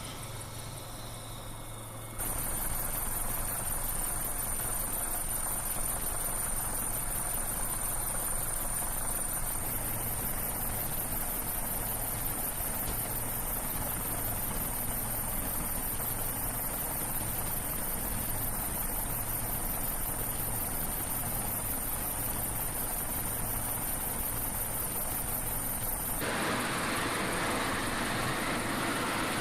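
F-35B jet engine running steadily, with a constant high-pitched whine over a broad rushing noise. The sound changes abruptly about two seconds in and again near the end.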